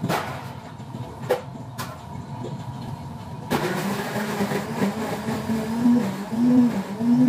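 Blender running for a chocolate smoothie: a low mechanical rumble with a few knocks, then about three and a half seconds in a sudden louder whirr whose pitch wavers and climbs as the motor speeds up.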